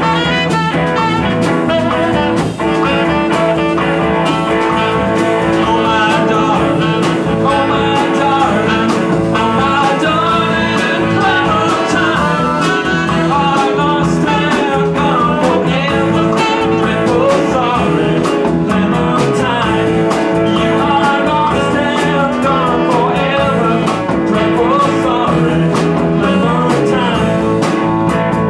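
Live band playing a blues number, with electric guitar over a steady groove and a hand drum in the mix.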